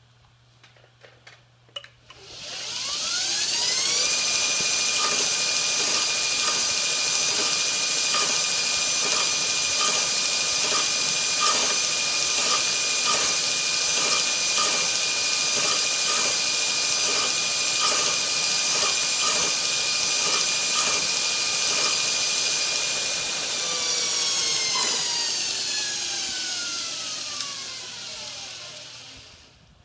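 A few light clicks, then a TW-90 belt grinder with a surface-grinding attachment spins up, rising in pitch for about two seconds. It runs steadily with a loud hiss from its 80-grit belt surface-grinding a steel knife flat, and a regular tick about twice a second. Near the end the motor winds down, its pitch falling until it stops.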